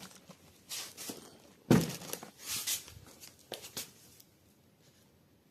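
A small bucket of rubble being handled and set down on a scale: a few short knocks and scrapes, with one heavier thump about a second and a half in, then quiet for the last second or so.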